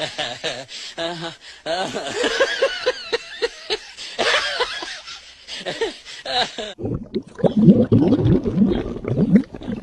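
Voices with laughter. About seven seconds in, this gives way to a denser run of lower-pitched, voice-like sounds.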